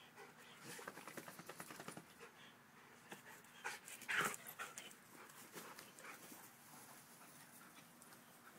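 Faint panting from playing dogs, quick short breaths in a rapid run during the first two seconds, with one louder short sound about four seconds in.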